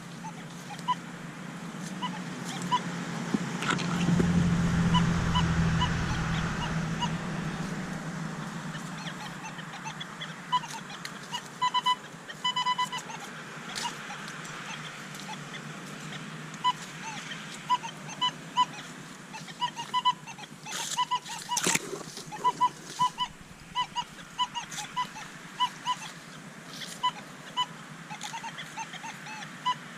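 Nokta Legend metal detector giving many short, same-pitched beeps as it is swept over ground crowded with iron and nails. A low hum swells and fades a few seconds in, and a sharp knock comes about 22 seconds in.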